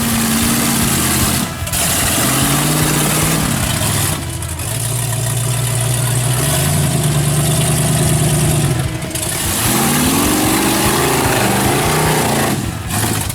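Off-road 4x4 truck engines revving hard, the pitch rising and falling again and again over a loud steady hiss, with abrupt cuts between shots.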